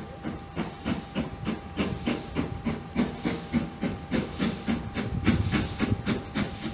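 Steam locomotive working toward the station, its exhaust chuffing in quick, regular beats, about five a second, loudest around five seconds in.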